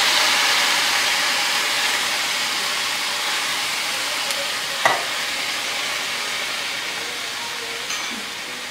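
Diced tomatoes sizzling in hot oil in a stainless steel frying pan of sautéed peppers and onions, stirred with a silicone spoon. The sizzle slowly dies down, and there is one sharp knock about five seconds in.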